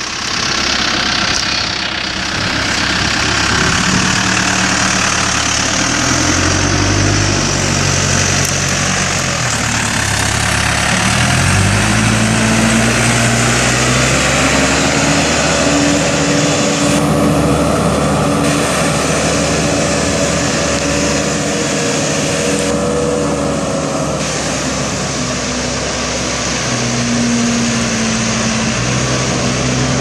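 Case 580 Super M Series II backhoe's four-cylinder turbo diesel engine running. Its pitch rises and falls a few times in the first half, then holds fairly steady while the machine drives.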